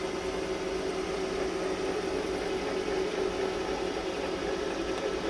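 Brown & Sharpe No. 2 universal cylindrical grinder running: wheel spindle, workhead and hydraulic table drive together give a steady hum over an even hiss.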